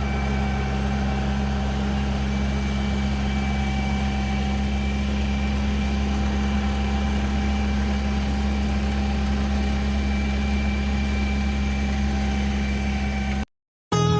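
Engine of a rice harvesting machine running steadily at a constant pitch with a deep hum. It cuts off abruptly near the end.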